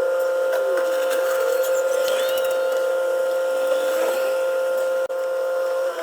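Background music: a steady held electronic note with overtones.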